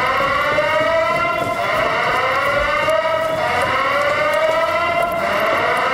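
Building evacuation alarm sounding a slow whoop: one rising tone that starts over about every second and a half to two seconds.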